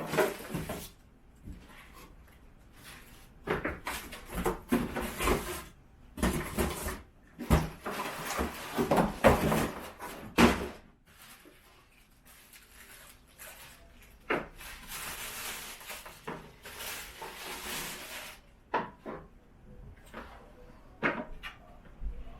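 Vacuum cleaner parts being handled: irregular clacks, knocks and rubbing as pieces are picked up, fitted and set down, with a longer rustling stretch a little past the middle.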